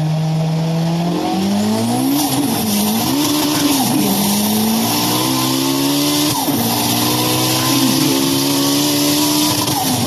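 Race-car engine sound effect revving up and down. It holds a steady note for about a second, then its pitch rises and falls repeatedly, with a high hissing squeal over it.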